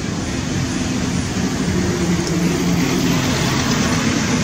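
Steady street traffic noise, with passing vehicles' engines humming low.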